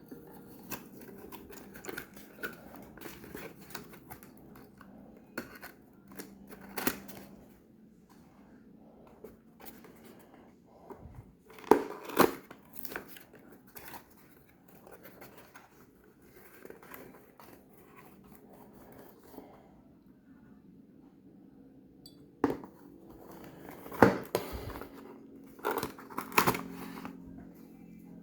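Packaging being handled during an unboxing: scattered clicks, scrapes and rustles, with a few louder sharp knocks about 12 seconds in and again from about 22 to 26 seconds in.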